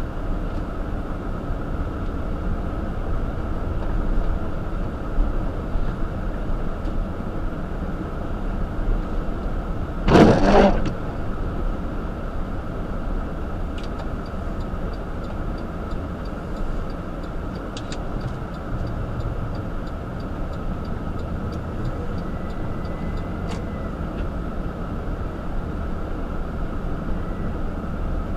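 Car driving on snow-covered pavement: a steady low rumble of engine and tyres, with a brief louder rush about ten seconds in.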